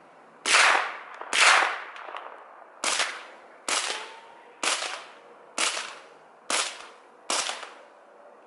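Eight suppressed 9mm shots from a SIG MPX carbine with a SilencerCo Octane 9 HD suppressor, roughly one a second. The first two, supersonic 115-grain rounds meant to get past the first-round pop, are the loudest; the last six, subsonic 147-grain rounds, are somewhat quieter.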